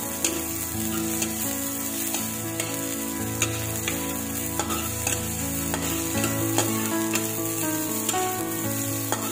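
Garlic and onion sizzling in hot oil in a metal wok. A metal spatula scrapes and clicks against the pan as they are stirred.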